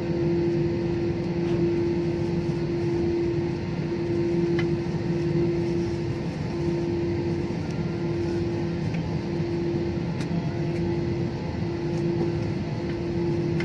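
Jet airliner cabin noise while rolling slowly on the runway after touchdown: the engines run at low power, giving a steady hum that pulses slightly over a low rumble.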